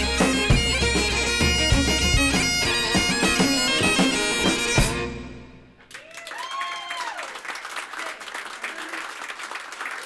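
Highland bagpipes with drones, a drum kit, fiddle and frame drum playing the final bars of a tune, ending with a last drum stroke about five seconds in and dying away. About a second later an audience applauds, with a few cheers.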